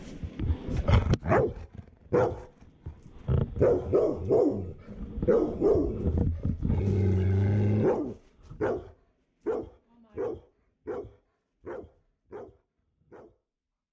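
Dog growling and barking in excitement, with a held low growl-like call about seven seconds in, then a run of short barks, evenly spaced and growing fainter.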